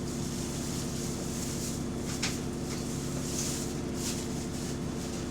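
Bus diesel engine running steadily, heard from inside the passenger saloon as a low, even hum, with a few brief rattles and clicks. The bus has an exhaust leak that is only barely audible from inside.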